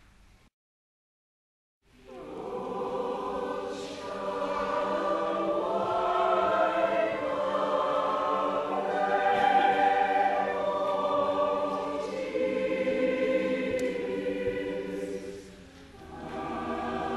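Large mixed choir singing in full chorus, coming in about two seconds in after a moment of complete silence. The sound drops briefly near the end before the choir resumes.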